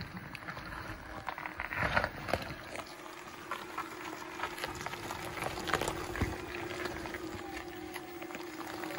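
Jeep Wrangler crawling up a steep rock slab: a steady engine hum with scattered crackles and crunches from the tyres on gritty rock.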